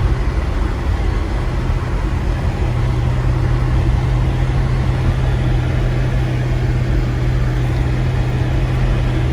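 Car driving on snow-covered road, heard from inside the cabin: a steady low drone of engine and tyre noise.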